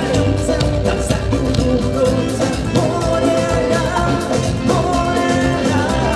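Live band music with a male singer over electric guitar, timbales and congas, playing with a steady beat.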